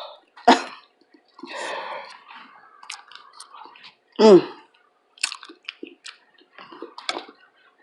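Close-miked eating sounds: wet chewing and mouth smacks, with a sharp click about half a second in and a brief voiced exclamation a little past the middle.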